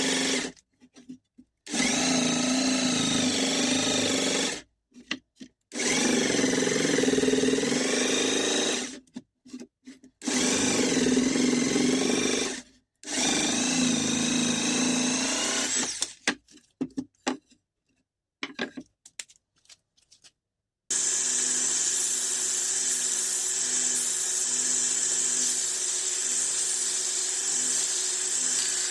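An electric drill or similar power tool runs in several short bursts, its motor pitch rising and falling, with sudden cuts between them. About two-thirds of the way in, a steadier, higher-pitched power-tool whine takes over.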